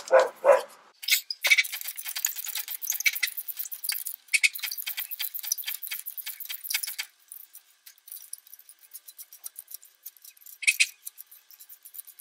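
Ratchet wrench clicking rapidly while loosening the clamp on a boat engine's exhaust. The clicking comes in two dense runs with a short break between them, then slows to scattered clicks and a single clink about ten and a half seconds in.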